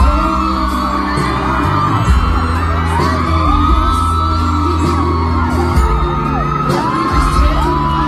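Live pop band playing: a singer's long held notes that glide up and down over steady electric bass notes and drums.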